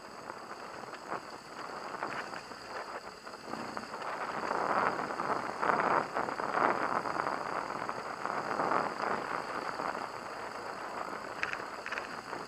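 BMW HP2 Enduro boxer-twin motorcycle ridden over a rough, stony dirt track, heard through a bike-mounted camera: a muffled, noisy rush of engine, wind and rattling over bumps, getting louder about four seconds in.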